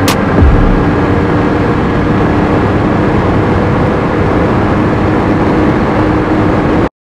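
Steady road and engine drone of a vehicle cruising at constant speed, with a single sharp click at the very start; it cuts off suddenly near the end.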